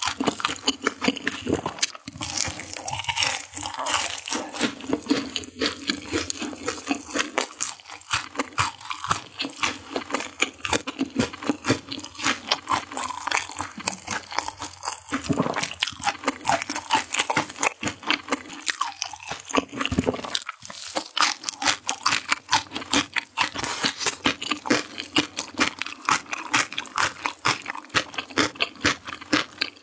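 Close-miked crunching and chewing of sauced fried chicken, many quick crisp crunches following one another.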